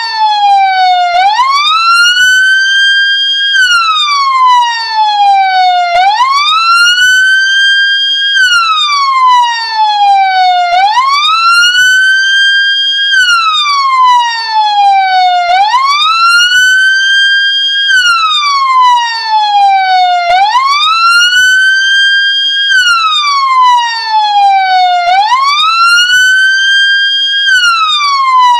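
Ambulance siren in wail mode: a loud tone that climbs quickly, holds briefly at the top, then glides slowly down, repeating about every five seconds.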